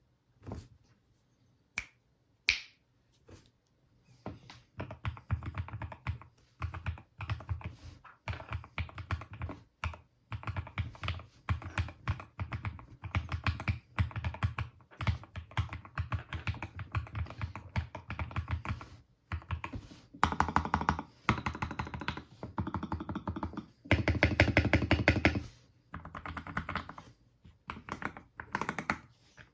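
Typing on a custom CIY Tester 68 mechanical keyboard with Gateron Milky Red Pro linear switches, stems lubed with Krytox 205g0: a few separate key clicks, then runs of rapid keystrokes with short pauses, densest about twenty and twenty-four seconds in.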